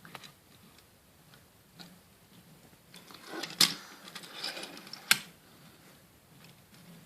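Small toy trains being handled, clicking and rattling, with two sharp clacks in the middle.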